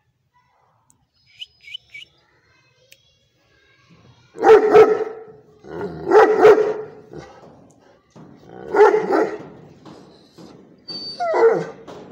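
A dog barking: four loud, drawn-out barks about two seconds apart, after a few faint high squeaks.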